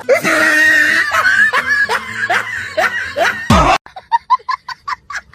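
Laughter: a run of falling "ha-ha" bursts over a noisy crowd background, ending in a loud thump and cutting off suddenly a little under four seconds in. After the cut come short, evenly spaced musical notes.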